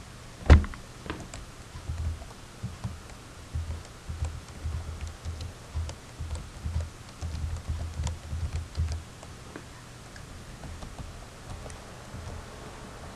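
Telephone call put on hold: a sharp clunk like a handset being set down, then a few seconds of irregular, muffled low thuds and background noise coming down the phone line.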